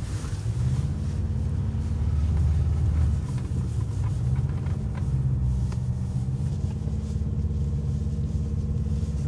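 Car engine and tyres heard from inside the cabin, a steady low drone while driving slowly over a snow-covered dirt track. The engine note dips briefly and picks up again about three to four seconds in.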